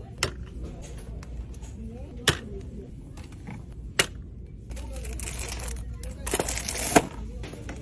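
Plastic toiletry tubes and bottles handled and set into a plastic shopping cart, with a few sharp taps, then plastic wrapping on a soap-bar multipack crinkling for about two seconds near the end.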